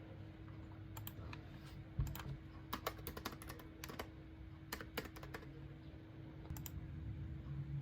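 Typing on a computer keyboard: irregular key clicks, some in quick runs, over a steady low hum.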